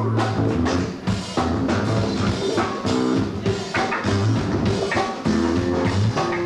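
Live rock band playing: drum kit keeping a steady beat under electric guitar and saxophone.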